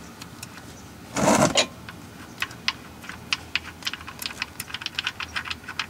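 Oil drain plug being unscrewed by hand from a 2015 Ford Fiesta's oil pan: a short burst of noise about a second in, then a run of small, irregular clicks as the loosened plug is turned out.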